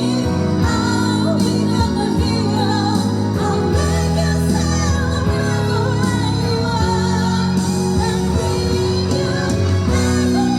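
Women singing a slow pop ballad over a backing track with steady bass and chords.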